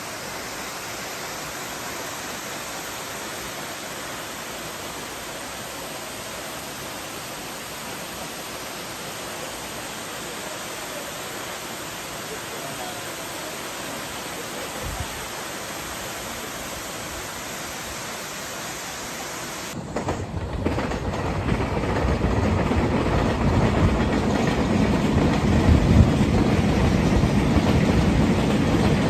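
Steady roar of a large waterfall. About twenty seconds in it cuts abruptly to a train's low rumble, which grows louder as the train approaches.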